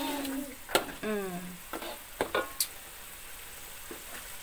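Ground chili and spice paste sizzling and bubbling in hot oil in a metal wok while a metal spatula stirs it, knocking and scraping sharply against the pan a few times in the first half.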